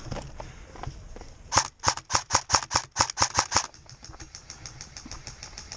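Airsoft gun firing a quick string of about ten single shots, roughly five a second, starting about a second and a half in. Fainter shots keep popping after the string stops.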